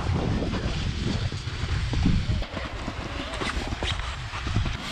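Wind buffeting the microphone, a heavy irregular rumble, with faint voices in the distance.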